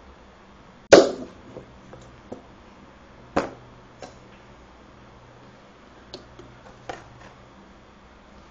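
A homemade stapler crossbow firing with a sharp snap about a second in, the staple shot into cardboard. A second sharp click follows about two and a half seconds later, then several fainter clicks and knocks of handling.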